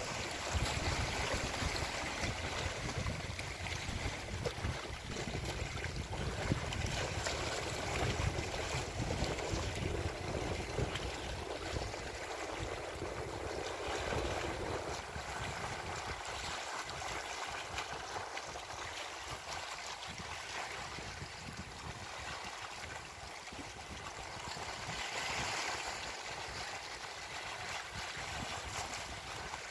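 Wind and choppy lake water lapping at the shore, a steady rushing hiss. A low rumble of wind on the microphone is heavy at first and eases about halfway through.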